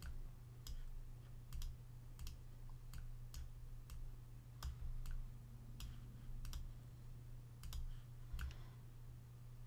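Faint computer mouse and keyboard clicks, about fifteen spread unevenly, over a steady low hum.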